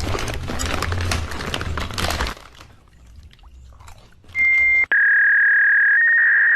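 A loud, noisy rush of sound with a low rumble for about two seconds, then quieter. Near the end a loud, steady electronic beep tone sets in and holds.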